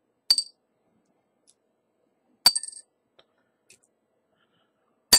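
Small metal camera gears and steel tweezers clinking against a glass jar as the parts are put in for washing. There are three short, sharp clinks about two seconds apart, each with a brief glassy ring.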